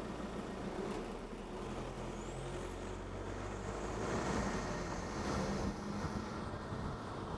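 Car engine and road noise as the car pulls away from traffic lights and gathers speed, with wind rushing over the microphone of a camera mounted outside on the roof. The engine note steps up a few times, and the noise grows louder about halfway through.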